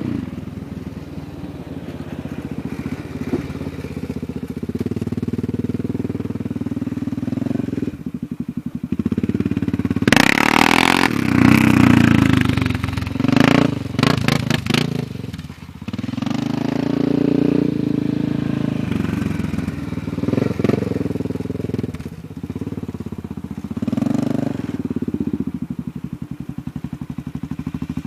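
Honda Rincon 680 ATV's single-cylinder engine, running through a Big Gun aftermarket exhaust with a remapped fuel chip, revving and running under load. It surges loudest under hard throttle between about ten and fifteen seconds in, with shorter blips later on.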